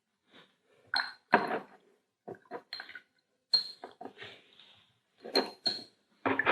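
Paintbrush knocking and clinking against a glass jar of rinse water, a quick irregular string of short taps, some with a light ring, as the brush is rinsed.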